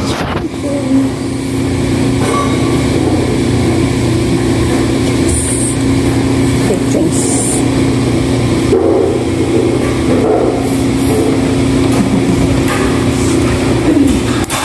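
A steady machine hum with a low, unchanging drone, with a few brief soft rustles over it.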